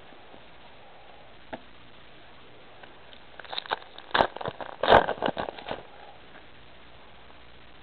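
A flurry of crinkling and crackling about three and a half seconds in, lasting a couple of seconds: a foil Pokémon trading card booster pack wrapper being handled and torn open.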